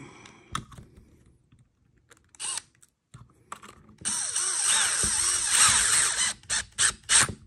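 Small screws being driven into an RC crawler chassis with a driver. A few light clicks, then about two seconds of steady grinding and scraping from around four seconds in, then a quick run of short, sharp bursts near the end.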